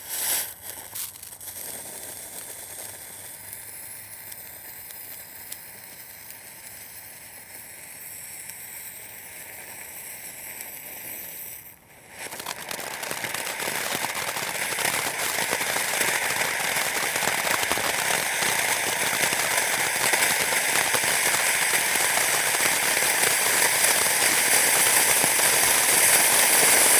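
Fireworks fountain spraying sparks with a continuous hissing crackle, opening with a sharp pop. About twelve seconds in it drops out for a moment, then comes back much louder and denser, building toward the end.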